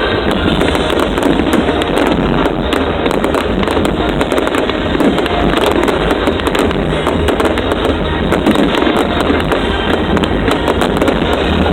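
A fireworks display going off continuously, with dense crackling and popping, over the show's music soundtrack.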